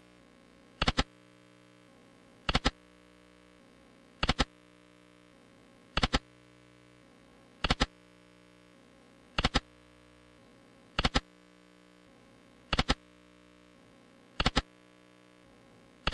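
Video slot machine clicking as its reels are spun over and over, a sharp double click about every 1.7 seconds, with a faint steady hum between.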